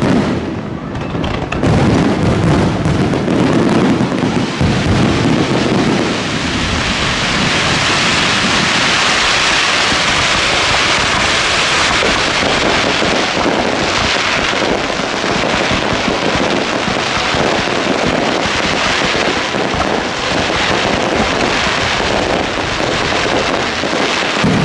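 Fireworks going off in a dense barrage: deep booms for the first few seconds, then a long, continuous crackling from many shells bursting at once.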